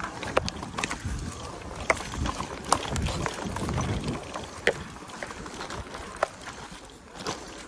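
Electric mountain bike rolling fast down a dirt trail: tyre noise over dirt and roots with irregular sharp rattles and knocks from the bike, and a low rumble that swells between about one and four seconds in.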